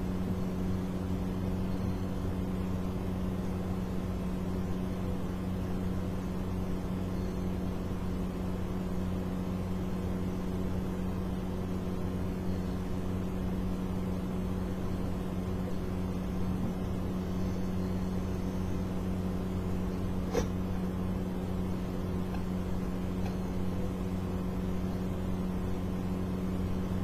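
A steady low electrical hum with one short click about twenty seconds in.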